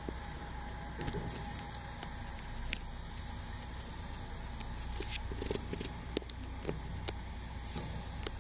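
Semi-truck diesel engine idling as a steady low rumble, with scattered light clicks on top.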